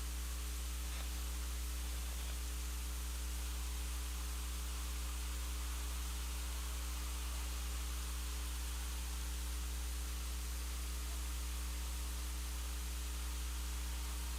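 Steady electrical hum with a constant hiss, unchanging throughout: mains hum and noise from the recording setup.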